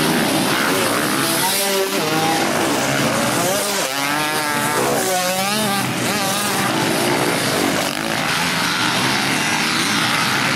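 A pack of dirt bikes racing, several engines running at once and revving up and down, with the revs sweeping up and down several times about halfway through.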